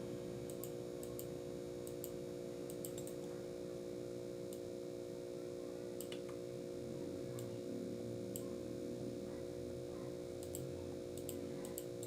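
Computer mouse clicking, single clicks and quick small clusters at irregular intervals, while editing a drawing in CAD software. A steady low electrical hum runs underneath.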